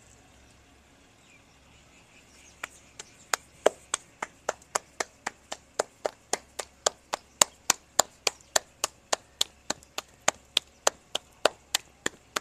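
Roti dough being patted out by hand: a steady run of sharp slaps, about three a second, starting a couple of seconds in.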